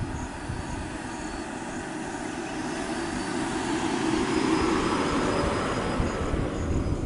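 Road vehicle passing close by: a steady rush of tyre and engine noise that swells to its loudest about four to five seconds in and then fades away.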